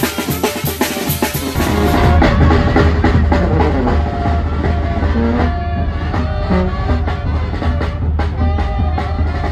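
Live tamborazo band music: tuba bass line and tambora bass drum with cymbals, and a brass and saxophone melody. About a second and a half in, the sound changes abruptly to another take with a heavier bass.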